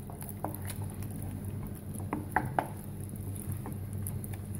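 Wooden spoon stirring thick, creamy risotto in a stainless steel pot: quiet wet stirring with scattered small clicks as the spoon knocks the pot, during the final creaming with butter and parmesan. A low steady hum runs underneath.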